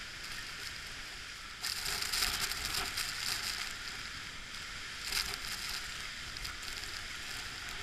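Steady rushing of a large waterfall, a hiss of falling water, with louder rough bursts about two seconds in and again around five seconds.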